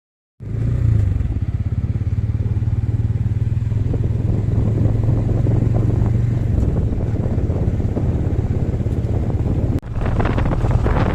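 A small engine running steadily with fast, even firing pulses and a low hum, cutting in suddenly just under half a second in and dropping out for an instant near the end.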